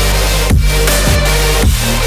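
Background electronic dance music with heavy bass and a steady drum beat, instrumental with no singing.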